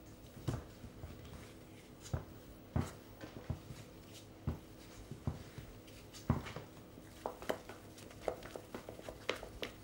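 Wooden spoon knocking and scraping against a glass mixing bowl while thick potato gnocchi dough is beaten, in irregular knocks about one or two a second, over a faint steady hum.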